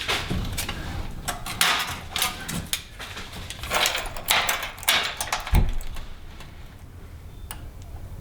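Hand work on a metal plate and tools: a run of clicks, knocks and short scrapes over the first six seconds, with one dull thud at about five and a half seconds, then quieter.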